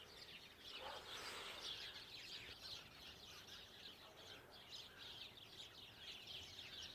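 A flock of birds chirping faintly, many short high chirps overlapping in a continuous chatter.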